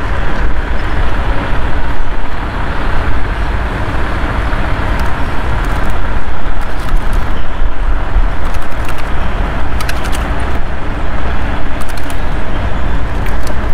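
Wind buffeting the body-camera microphone: a loud, steady low rumble with fluttering gusts. A few faint clicks of handling come through it.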